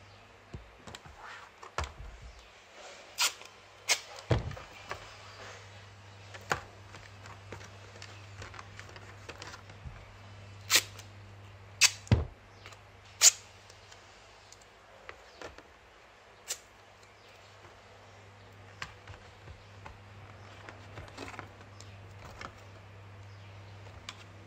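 A thin clear polycarbonate RC car body being handled and flexed, giving scattered sharp plastic clicks and crackles, with the loudest snaps near the middle. A low steady hum runs underneath.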